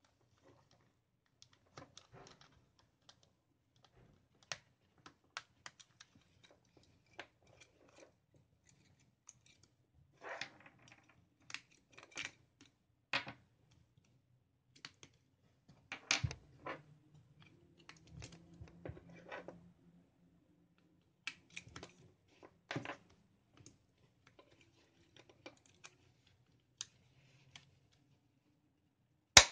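Scattered plastic clicks, taps and rattles from handling a Black Diamond Storm headlamp and prying at its battery compartment, with one sharp snap near the end.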